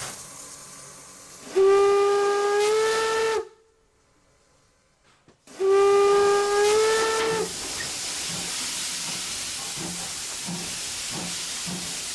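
Two blasts of a steam locomotive's whistle, each about two seconds long, the pitch rising slightly through each blast. A short silence separates them. Steam hisses before the first blast, and a steady hissing rush follows the second.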